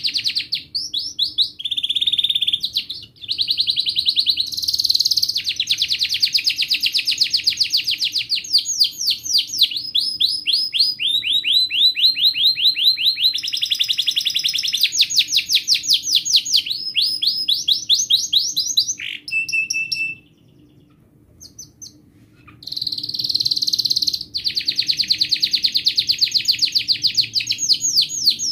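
Domestic canary singing a long song of fast rolling trills, one phrase running into the next with shifts in pitch. The song breaks off for a couple of seconds about two-thirds of the way through, then starts again.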